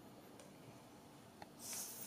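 Faint handling of plastic Snap Circuits pieces on the clear base grid: a small click a little past halfway, then a brief scraping rustle near the end, over quiet room tone.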